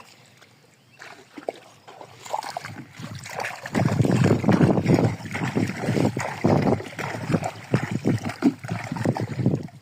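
Water sloshing and splashing in quick, irregular strokes, building up about a second in and loudest from about four seconds in.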